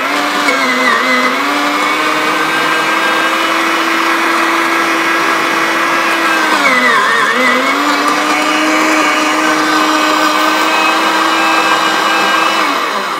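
Anko 300 W electric meat mincer running loaded while grinding bone, a loud steady motor whine. Its pitch sags briefly about a second in and again around the middle as the bone bogs the motor down, then it winds down and stops near the end.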